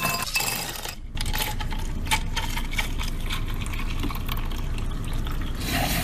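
Ice cubes dropping and clinking into a glass tumbler, followed by liquid poured over the ice with many small clinks and cracks. Near the end a handheld battery milk frother starts running in the glass with a steady whir.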